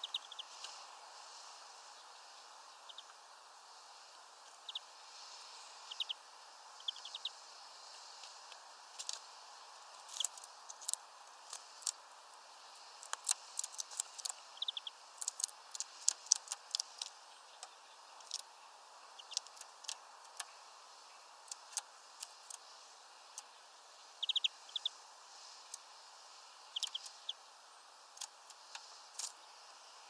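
Birds feeding at a window feeder: a scatter of sharp clicks and taps, thickest in the middle, with short faint chirps now and then over a steady low hiss.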